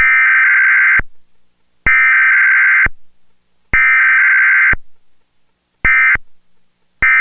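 Emergency Alert System SAME digital data bursts for a Required Weekly Test: the header sent three times, about a second each with short gaps, then two much shorter end-of-message bursts near the end.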